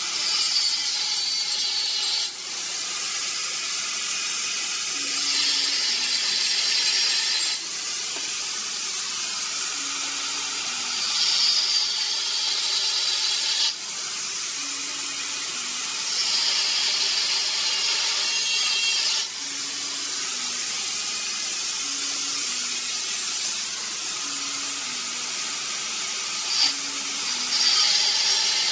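Angle grinder with a thin cutting disc cutting through steel plate: a steady, loud, high-pitched grinding noise, broken by brief dips every few seconds.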